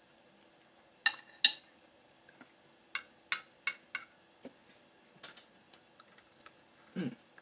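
Metal fork and spoon clinking and scraping against a ceramic plate and a glass bowl while eating: a dozen or so sharp, irregular clicks.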